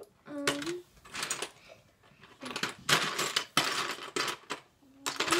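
Loose Lego bricks rattling and clattering as hands rummage through a bucket of Lego, in bursts, loudest in a long stretch from about halfway through.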